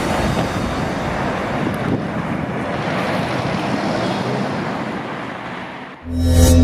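Steady rushing noise of wind and traffic outdoors on a city street. About six seconds in it cuts off and music starts.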